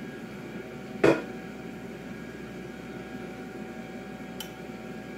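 Steady hum of a running kitchen appliance, with a few faint steady whining tones over it. A single sharp knock about a second in, and a faint click near the end.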